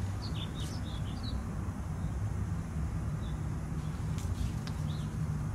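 Birds chirping in quick short calls, several in the first second and a half and a few more around four seconds in, over a steady low rumble.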